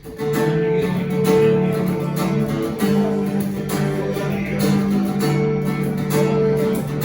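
A band's instrumental song intro led by strummed guitar chords, with steady rhythmic strikes.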